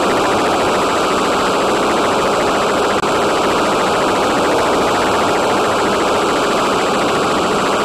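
Steady, loud hissing noise on a flying FPV model aircraft's onboard audio feed, with a fast even flutter and a faint high whine.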